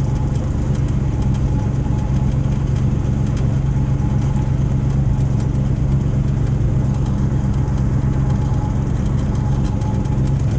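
Carbureted rat rod engine with a Holley 4150 four-barrel carburetor, idling steadily.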